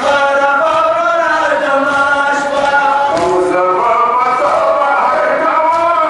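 A crowd of men's voices chanting a mourning lament (noha) together, in long held melodic lines.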